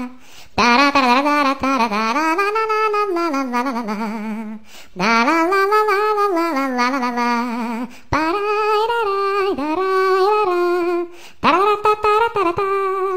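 A voice singing a wordless tune in four long, wavering phrases separated by short breaks.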